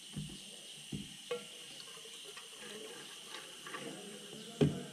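Faint sound of petrol being poured and sloshed in a small bowl for cleaning a carburettor, with a few light clicks and a thump near the end.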